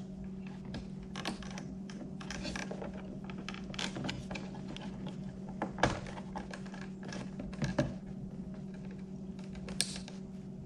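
Small plastic clicks and rattles as a car-door electrical connector with a locking tang is worked loose by hand, the sharpest clicks a little past halfway and near the end. A steady low hum runs underneath.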